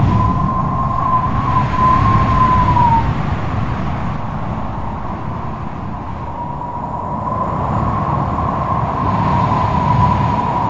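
Strong wind blowing in gusts, with a wavering whistling howl that fades out about three seconds in and swells back in from about halfway.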